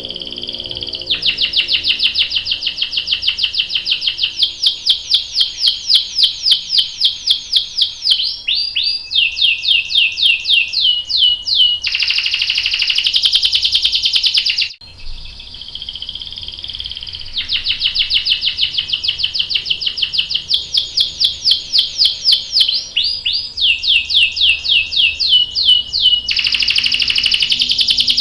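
Domestic canary singing long rolling trills of fast, evenly repeated notes, broken by two denser buzzy passages, the first about halfway through and the second near the end.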